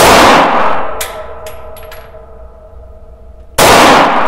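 Two loud 9×19 mm pistol shots from a prototype VZ-15 pistol, about three and a half seconds apart, each ringing out in the range booth. After the first shot, spent brass cases clink and ring on the floor several times.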